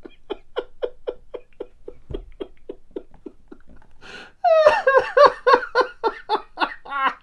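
A man laughing helplessly: quiet, breathy, rhythmic giggling held back for about four seconds, then breaking into loud, open laughter with pitch swooping up and down.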